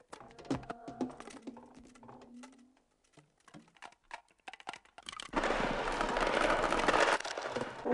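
Electroacoustic musique concrète: scattered clicks and short tone fragments, then from about five seconds in a dense, louder mass of noisy sound lasting about two seconds.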